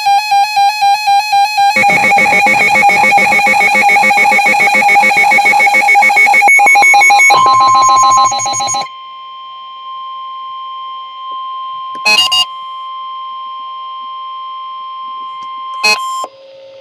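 Emergency Alert System weather radio alert. It opens with loud, warbling, buzzy electronic tones. About seven seconds in, a steady single-pitch alarm tone starts, the NOAA Weather Radio warning tone, and holds for about nine seconds, with two short blips over it.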